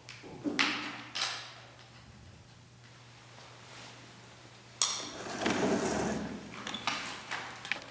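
Paper rustling and scraping as an artist handles a paper-covered canvas and drawing tools on the floor: two brief scrapes at the start, then a sharper one near the middle followed by a few seconds of irregular rustling, over a faint steady hum.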